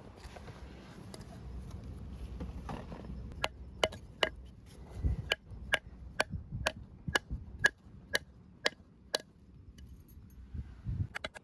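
A steady run of about a dozen sharp, slightly ringing strikes, roughly two a second, starting a few seconds in, followed near the end by a quicker flurry of lighter taps.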